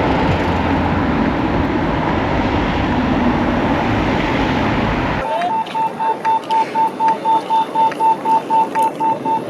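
Busy pedestrian-street ambience recorded on the move: a dense wash of passers-by and city noise. About five seconds in it cuts off abruptly to a rapid electronic beeping, one steady pitch repeating about four times a second.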